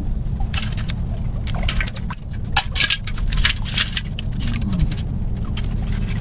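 Dense clicking, rattling and splashing of a bamboo fish trap being handled with its catch of shrimp and fish inside, over a steady low rumble of water.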